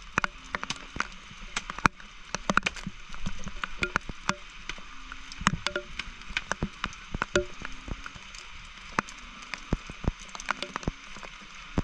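Wet night ambience: many irregular sharp taps and clicks over a steady high hiss, with short low frog calls repeating every second or so.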